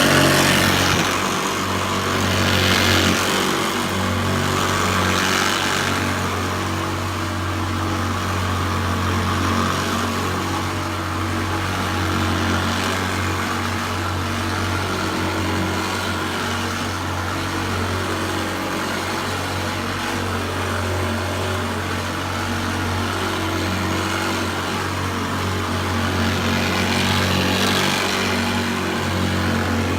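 Hoover Senior U4002 upright vacuum cleaner running on carpet with its agitator brush: a steady motor hum under a rushing of air that swells several times, near the start, a few seconds in and again near the end.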